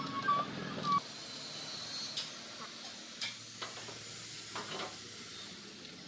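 Scattered soft clicks and scrapes of gloved hands working on a front-loading washing machine's parts, over a steady hiss.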